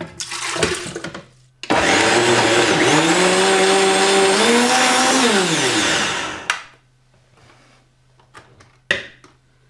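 Liquid poured into a blender jar, then an Omniblend V high-powered blender puréeing a tomato in water: the motor starts about two seconds in, rises in pitch as it speeds up, runs steadily, then winds down with a falling pitch and stops a little past halfway. A few light knocks follow.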